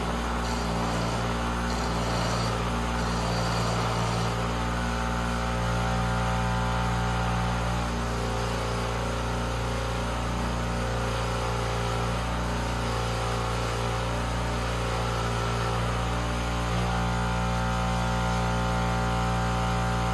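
Bench grinder running with a steady motor hum while the end of a steel suspension cartridge rod is held and turned against the grinding wheel. The grinding takes the rolled thread at the tip of the mid-valve post down flush with its nut.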